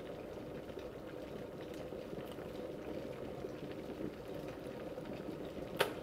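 Electric kettle heating water toward the boil, a steady noise of water coming to the boil, with one sharp click near the end.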